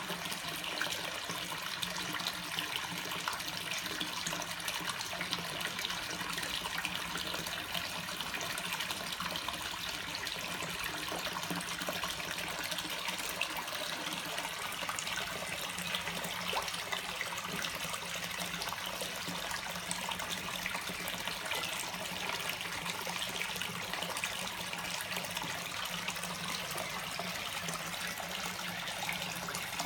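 Koi pond water splashing and trickling steadily, with a constant low hum underneath.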